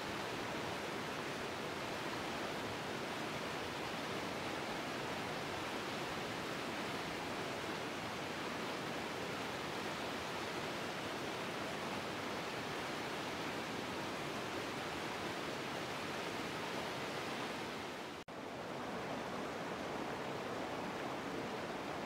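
Waterfall rushing steadily as it cascades over granite slabs. About 18 seconds in, the sound drops out for an instant and resumes slightly duller, as water tumbling among boulders.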